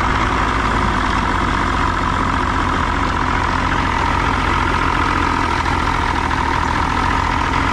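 A 1993 Johnson 60hp two-stroke outboard engine idling steadily, running again after a corroded battery cable connection was cleaned.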